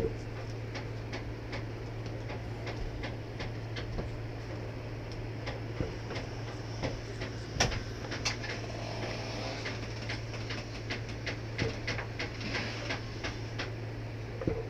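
Thick homemade slime being worked, giving irregular sticky clicks and pops, several a second, with a sharper cluster about eight seconds in. A steady low electrical hum runs underneath.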